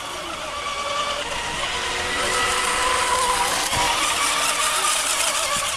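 Electric radio-controlled monohull racing boat speeding past, its motor whine sliding in pitch over the hiss of spray. It grows louder to a peak about halfway through, then fades.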